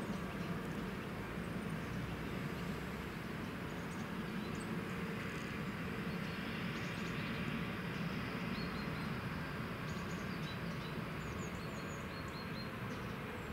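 Class 741.7 diesel locomotive's engine running with a low, steady drone as it hauls a train of freight wagons slowly round the curve. Small birds chirp now and then from about four seconds in.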